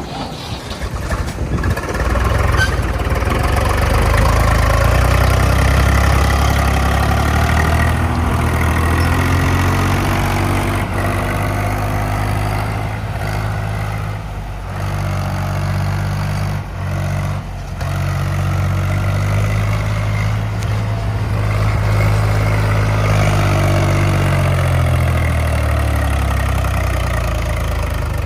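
A heavy machine's diesel engine running loudly. It builds up in pitch over the first couple of seconds, then holds steady. Near the end the pitch dips and rises again.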